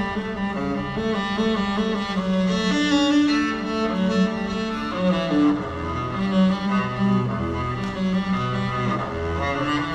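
String music: cello and violins playing held, overlapping notes that change every second or so.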